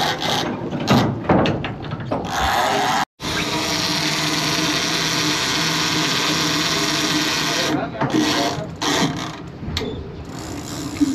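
A big-game fishing reel working against a hooked shark: a mechanical ratcheting clatter for about three seconds, then a steady geared whir after a brief drop-out.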